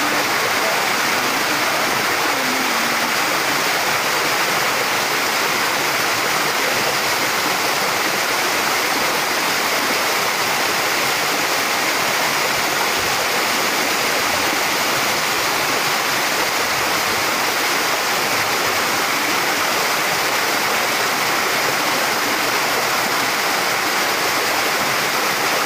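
Waterfall cascading down stepped rock ledges into a pool: a steady rush of falling water.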